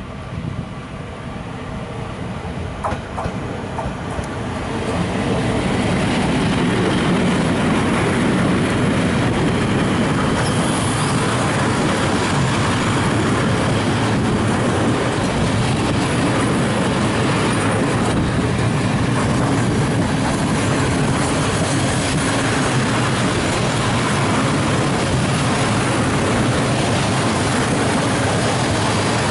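Freight train of open coal wagons behind an ET41 electric locomotive passing close by. The noise builds over the first five seconds as the train arrives, then holds as a steady loud rumble of wagon wheels rolling over the rails.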